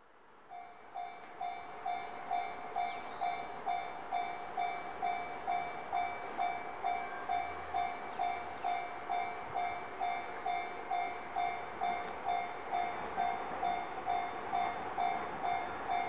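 Japanese railway level-crossing warning bell ringing in an even, repeating ding-ding of about two strokes a second, the signal that a train is approaching. A steady rushing noise runs underneath.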